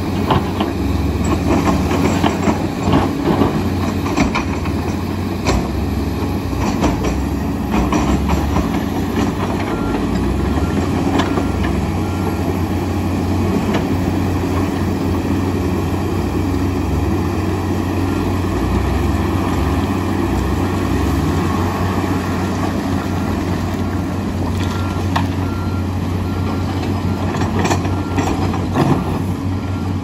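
Heavy diesel engines of a crawler excavator and a Komatsu D85EX bulldozer working in rock, a steady deep drone. Clanks and knocks of stone and steel come through it, thickest in the first few seconds and again near the end.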